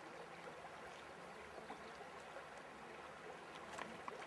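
Faint steady rush of a shallow river's current, with a few faint ticks near the end.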